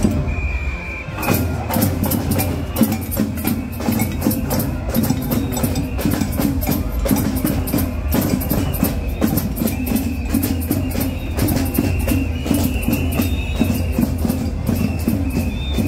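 Loud music with busy percussion, rapid hits running without a break, and a high held note sounding now and then over it.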